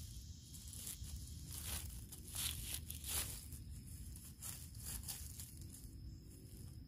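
Irregular crunching and rustling in forest-floor litter: a run of short crackles at uneven intervals, densest in the middle.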